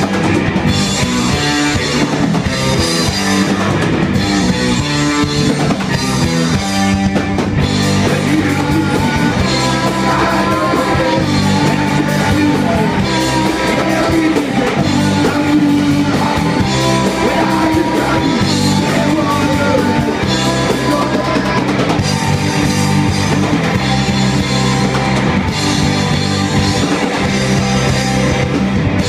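Punk rock band playing live: electric guitar, bass guitar and drum kit, loud and steady, with a woman singing through the middle part.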